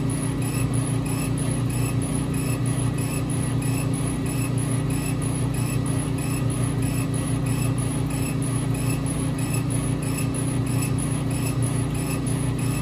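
Epilog Fusion M2 40 laser cutter raster-engraving: a steady mechanical hum with a quick, even pulse about three times a second as the laser head sweeps back and forth across the lettering.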